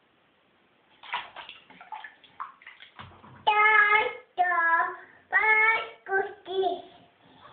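Water splashing in a baby bath, then a toddler's high sing-song vocalising: three long held 'aah' notes with a bending pitch, followed by a few shorter babbling sounds.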